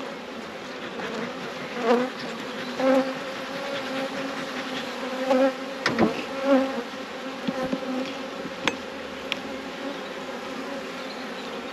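Honeybees buzzing over an open hive, with several louder passes as single bees fly close by, their hum rising and falling. A few sharp clicks come from the hive tool on the wooden frames.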